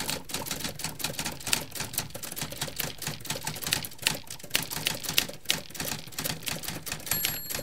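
Manual typewriter keys clattering in quick, irregular strokes as the text is typed out, with a short ringing tone near the end.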